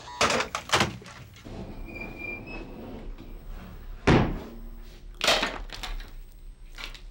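Heavy thumps and clanks of a teenager's metal-armoured robot feet: a few sharp knocks in the first second, then two big hits about four and five seconds in, the first the loudest and deepest.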